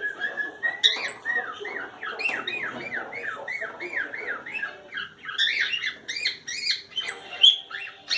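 Cockatiel whistling and chirping: one held whistled note at the start, then a long run of short rising-and-falling chirps, about three a second, with scattered sharp clicks.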